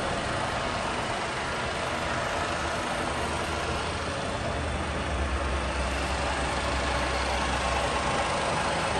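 G Vernier FV3 universal milling machine running with a steady mechanical hum from its motor and gearing, its table being driven along the X axis. A deeper low hum comes in about three seconds in and fades near the end.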